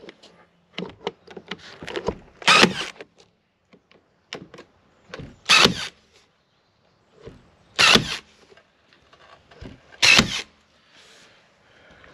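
Makita DST221Z 18 V cordless stapler firing staples through plastic mesh netting into wood. There are four sharp shots about two to three seconds apart, with lighter clicks and knocks of handling between them.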